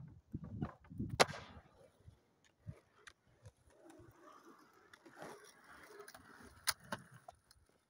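Footsteps and thumps on a wooden pallet ramp, with one sharp loud clack about a second in, then a fainter stretch and a second sharp clack near the end.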